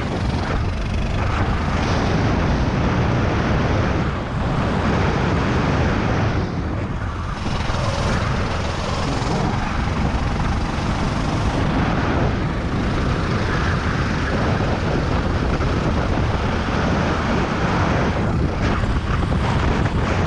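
Kart engine running hard under throttle, heard on board, with wind rushing over the microphone; the sound dips briefly around four and seven seconds in, then holds steady as the kart builds speed along the straight.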